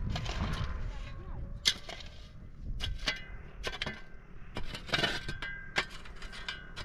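Irregular sharp knocks and clacks, several a second at times, with faint voices.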